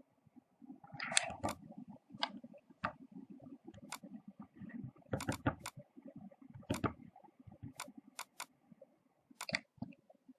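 Irregular sharp clicks of a computer keyboard and mouse as a password is typed in and the login form is clicked, with a low muffled rumble between the clicks.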